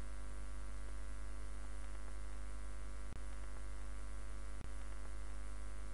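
Steady electrical mains hum with a stack of buzzing overtones. It cuts out for an instant twice, about three seconds in and again a second and a half later.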